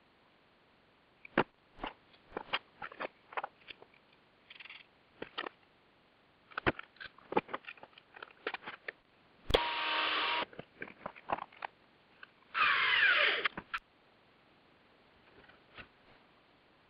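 Small metal parts (bolts, washers, nuts) clicking and wooden pieces knocking as a wooden coil-winding bobbin jig is put together by hand. Two scraping noises about a second long break in partway through, then it goes quiet.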